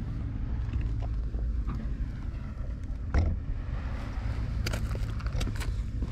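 A low steady rumble, with a knock about three seconds in and a run of sharp clicks near the end.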